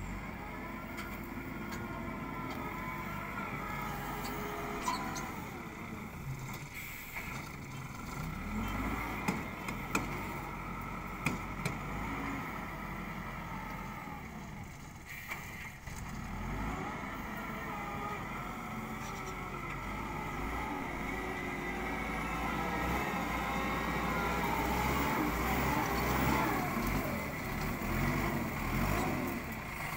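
LiuGong wheel loader's diesel engine running, its pitch rising and falling with the throttle as the machine drives back and forth pushing soil with its bucket. A few sharp knocks come in the first third.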